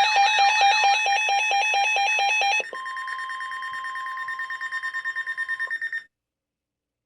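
Electronic alarm tones sounding together: a rapid beep about eight times a second with a warbling, stepping high tone. About two and a half seconds in it changes to a steady tone over a fast pulsing beep, which cuts off suddenly about six seconds in.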